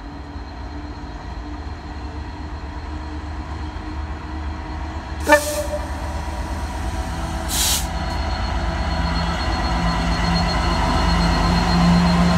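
Class 66 diesel freight locomotive approaching under power, its EMD two-stroke V12 growing steadily louder, with a deep steady engine note coming up strongly over the last few seconds. Two brief hissing bursts break in, about five seconds in and again a couple of seconds later.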